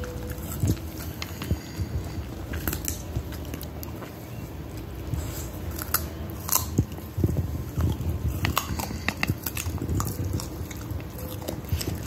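A dog chewing a raw carrot: irregular crisp crunches and gnawing, busiest for a few seconds after the middle.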